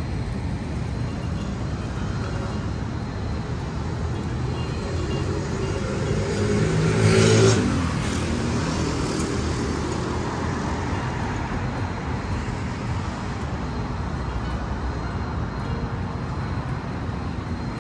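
Steady road traffic noise, with one vehicle passing louder about seven seconds in.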